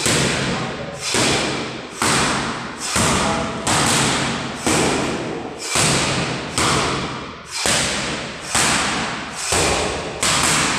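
Boxing gloves striking focus mitts in a steady rhythm, about one sharp smack a second, each hit followed by a long echo off the hall's hard surfaces.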